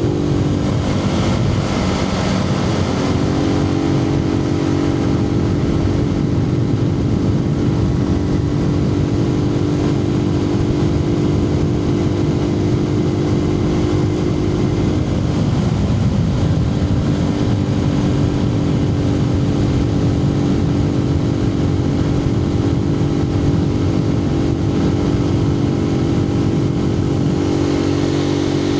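Suzuki TU250X's single-cylinder engine running steadily under way, heard from a microphone inside the rider's helmet with a dense low rumble of wind and road noise. The engine note shifts pitch about two to three seconds in and again around fifteen seconds.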